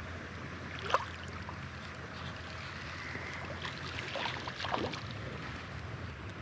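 Creek water running steadily, with a short sharp sound about a second in and a few brief quick sounds around four to five seconds in.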